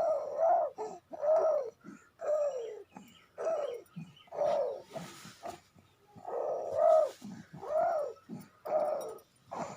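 Three-month-old baby cooing "hoo hoo", a string of short vocal sounds about one a second, each rising and falling in pitch: the early cooing stage of infant vocal development.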